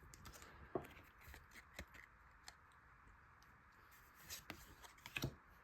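Faint, scattered soft clicks and rustles of Pokémon trading cards and pack wrapping being handled, with a small cluster of clicks near the end.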